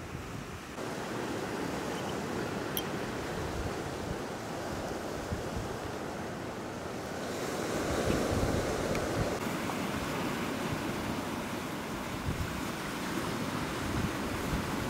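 Ocean surf breaking and washing along the shore, with wind; a wave swells a little louder about eight seconds in.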